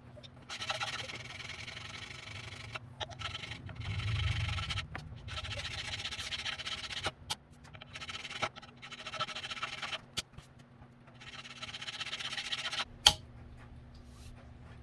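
A hand tool scraping over the metal body of a grinder in about six long strokes, each lasting one to two seconds with short pauses between them. There is a sharp click near the end.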